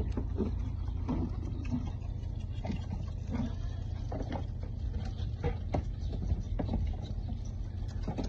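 A row of goat kids suckling from bottles in a wooden feeding rack: scattered clicks and knocks of the bottles and jostling, with a few short bleats, over a steady low rumble.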